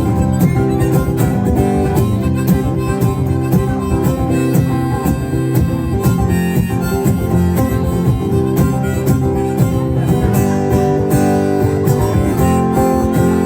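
Acoustic guitar picked steadily under a harmonica carrying the melody: the instrumental intro of a folk-blues song, before the singing begins.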